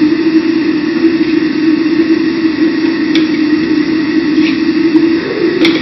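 Steady loud hum and rushing noise of commercial kitchen equipment, with a sharp click about three seconds in and another near the end.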